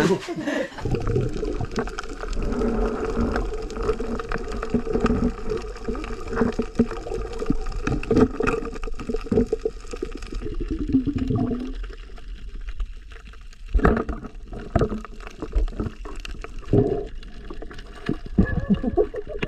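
Underwater noise of water moving and gurgling, with many small clicks scattered throughout.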